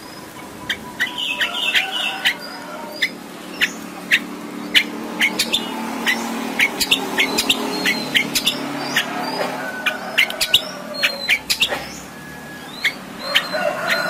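Caged long-tailed shrike (cendet) singing a fast, varied song of sharp clicking notes and short whistles, with a harsh scratchy passage about a second in. It is a 'full isian' song, filled with mimicked calls of other birds.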